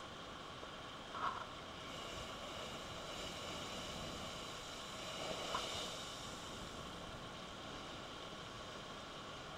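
Surf surging into a lava-rock blowhole, a steady rushing wash that swells as the blowhole spouts its spray column through the middle, with two brief high blips.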